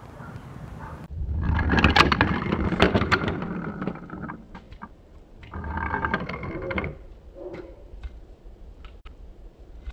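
A wooden toy train rolling and clattering down a wooden track, with sharp clicks over the rails. It makes one run of about three seconds starting a second in, then a shorter rattle around six seconds.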